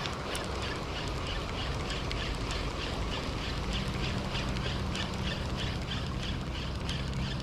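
Daido Dark Knight 2000 spinning reel being cranked to retrieve a lure, its gears giving a rhythmic ticking whir about three to four times a second over wind and lapping water. A low steady hum joins about halfway through.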